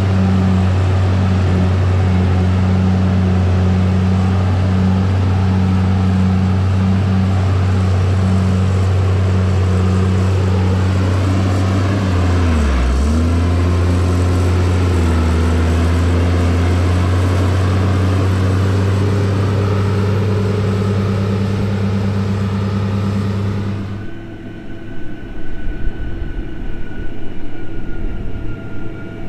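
Motor grader's diesel engine running steadily, its pitch dipping briefly and recovering about halfway through. Near the end the sound changes abruptly to a quieter engine hum with uneven low rumbling.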